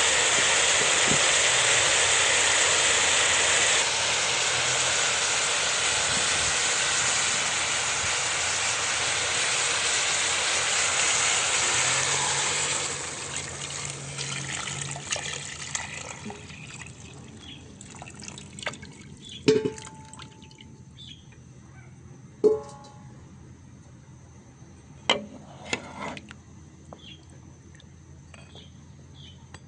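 A steady rushing, liquid hiss from the soup pot for about twelve seconds, then it dies away. Several light clinks of a utensil against metal cookware follow, a few of them ringing briefly.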